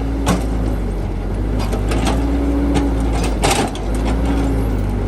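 A motor running steadily, with a humming tone that drifts slightly in pitch over a low rumble, and scattered short clicks and knocks.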